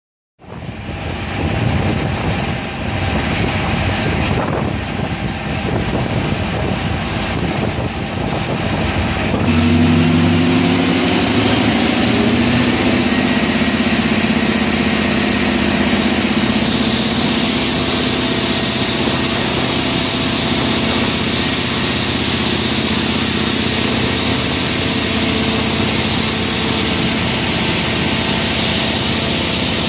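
Oshkosh airport crash-rescue truck running, its engine climbing to a higher, steady pitch about ten seconds in as it drives the fire pump for the water turrets. The water jets hiss, and the hiss gets brighter about seventeen seconds in as the spray widens into a fog.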